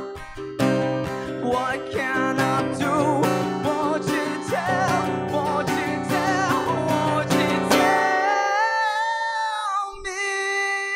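Acoustic guitar strummed steadily under a man's singing without clear words. About eight seconds in the strumming stops and the voice carries on alone in long held notes with vibrato.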